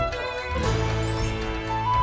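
Instrumental theme music for a TV show's title bumper: a melody over a steady low note, with a rising shimmer about a second in.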